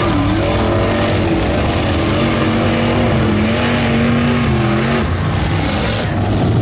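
Lifted mud truck's engine revving up and down in pitch as its big paddle-style tires churn through deep mud, over a heavy rush of flung mud and spray.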